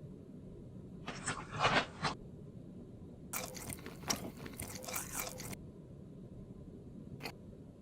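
Crunchy biting and chewing of food in two stretches, one about a second long and the next about two seconds, with a short click near the end.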